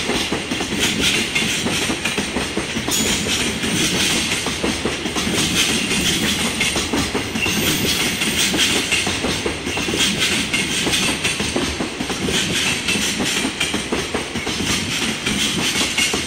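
Container wagons of a long freight train rolling past close by: a steady rumble with continuous rapid clattering of wheels on the rails.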